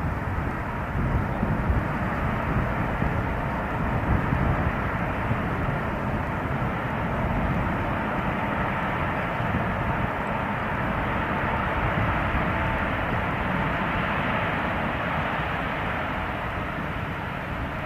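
Airbus A380-800's four turbofan engines roaring at takeoff thrust, a steady deep rumble that swells slightly midway and slowly fades toward the end.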